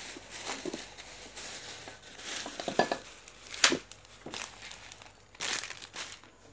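Rustling, scraping handling noise as hands move wires and parts inside a battery charger. A few sharp clicks come midway and a louder scuffle near the end, over a faint steady low hum.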